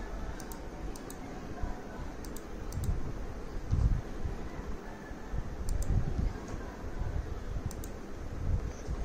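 Light clicks of a computer mouse button, about six quick double ticks spaced irregularly, over a low rumble with a few soft dull thumps.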